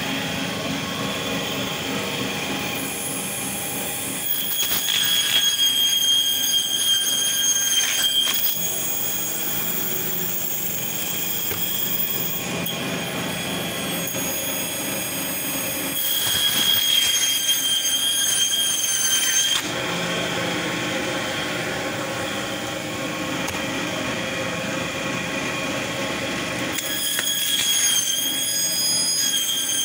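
Electric band saw running with a steady high-pitched whine, growing louder and harsher in three stretches, about 4 s, 16 s and 27 s in, as the blade cuts through a whole catla carp.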